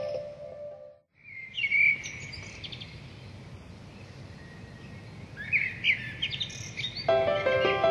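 Small birds chirping in two short clusters of quick calls over a steady low hiss. Background music fades out in the first second after a brief moment of silence and comes back near the end.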